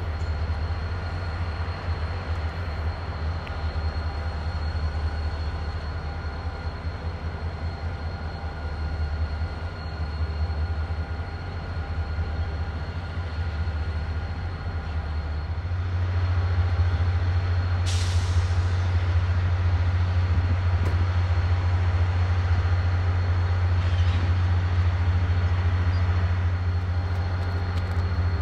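A Rocky Mountaineer diesel locomotive's engine runs with a steady, heavy low rumble that grows louder a little past halfway through. Near two-thirds of the way in comes a sharp hiss of air that fades away, and a fainter one follows a few seconds later.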